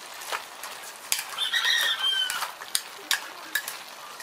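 Metal ladle stirring chicken and vegetables in a large aluminium pot, scraping and clinking against the pot's sides. About halfway through, a bird calls once: a short cry that falls in pitch at its end.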